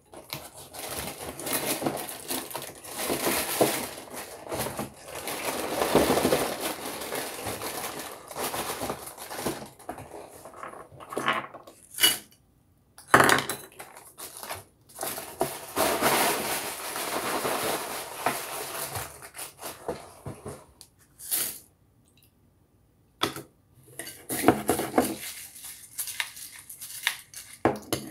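A spoon stirring and scooping through a bowl of Cinnamon Toast Crunch and Raisin Bran, with a crackling cereal rustle and the spoon clinking against the bowl. The rustle comes in two long spells, the first about ten seconds and the second about seven, with a few sharp clicks between them.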